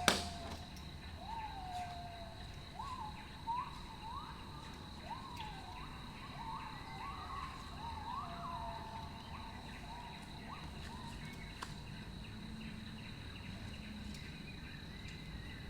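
A bird calling faintly, a series of short chirps, each rising sharply and then sliding down, repeated irregularly for about ten seconds over steady background noise with a thin, steady high-pitched whine.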